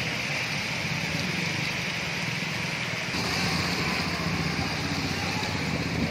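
Steady outdoor traffic noise on a wet street: motorbike engines running over a constant hiss. The sound shifts slightly about three seconds in.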